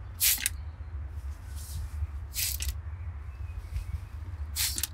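Three short squirts from a hand trigger spray bottle, about two seconds apart, spraying liquid onto the gas cartridge and regulator connections to check them for leaks.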